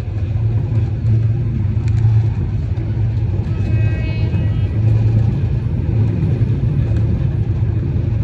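Steady low rumble of a motor vehicle driving, with a brief higher-pitched sound about four seconds in.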